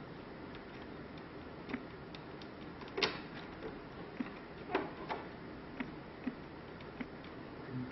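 Small plastic shutter repair pieces clicking and tapping against the shutter as they are positioned and twisted into place, in irregular single clicks, the loudest about three seconds in.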